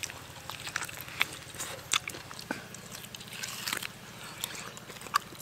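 A person biting into and chewing a stewed beef hoof held in the hands. Wet mouth smacks and irregular clicks, three of them sharper than the rest.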